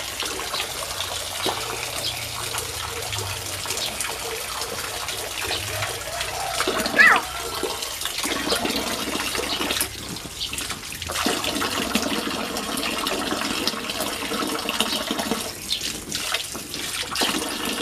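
Water running steadily into a shallow inflatable paddling pool, with light splashing as a child wades among floating plastic balls. A brief high-pitched squeal rises about seven seconds in.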